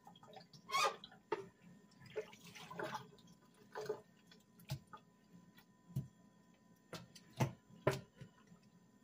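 Water dripping and splashing off a freshly rinsed raw duck as it is turned and lifted in a stainless steel sink, with irregular wet knocks of the bird against the sink; the strongest come near the end.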